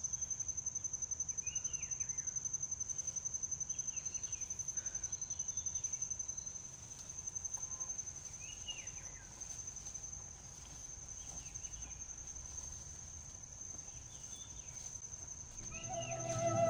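A steady high trill of insects, cricket-like, with short bird chirps now and then. Music with held notes comes in just before the end.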